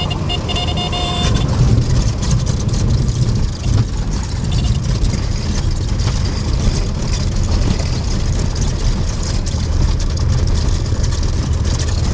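Cessna 182's piston engine and propeller running at low power, heard from inside the cockpit as the aircraft rolls out along a grass airstrip after landing. A brief high tone sounds in the first second.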